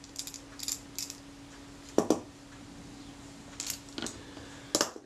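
Small metal clicks and clinks from handling a Kodak Retina IIIc shutter assembly and a small screwdriver on the workbench, with sharper knocks about two seconds in and near the end. A faint steady hum sits underneath.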